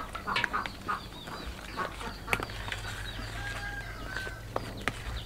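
Metal spoon stirring and scraping a wet flour-and-egg batter in a plastic bowl, with irregular clicks of the spoon against the bowl.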